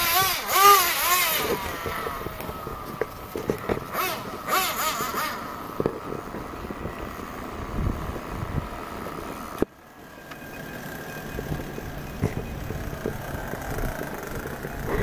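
Radio-controlled car motor revving in quick blips, its pitch swinging up and down, then running at a steadier pitch. About ten seconds in the sound drops suddenly and a fainter steady whine carries on.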